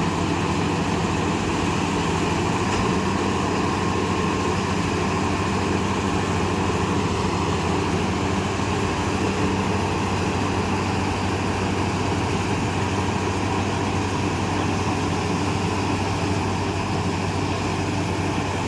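Mahindra combine harvester running steadily, a constant engine drone with a noisy mechanical hum over it and no change in speed.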